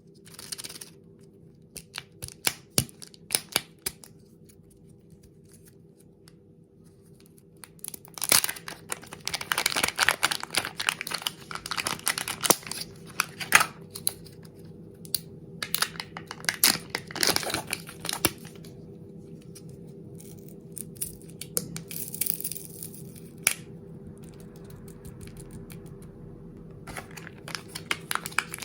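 Kinder chocolate egg wrappers being unwrapped by hand, crinkling and tearing in bursts, with scattered sharp clicks and taps between them.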